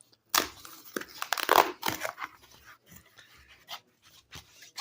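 A cardboard mailer being torn open and its packaging handled: ripping and crinkling, loudest in the first two seconds, then softer rustles and taps.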